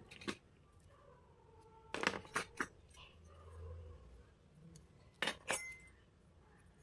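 Miniature plastic toy kitchen pieces clicking and clinking against each other as they are handled: one tap at the start, a quick cluster of three about two seconds in, and two more about five seconds in.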